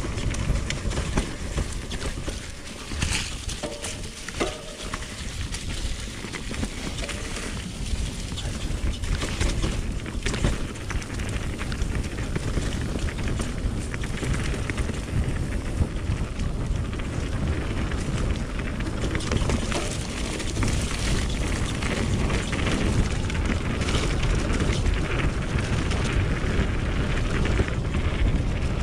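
Wind rushing over the microphone and tyres rolling over a dirt trail while a mountain bike is ridden downhill, with scattered knocks and rattles over bumps.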